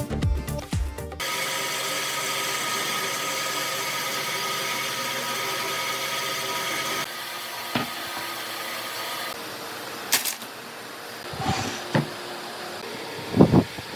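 An electric power tool running steadily for about six seconds, then cutting out, followed by a few scattered knocks. Music ends about a second in.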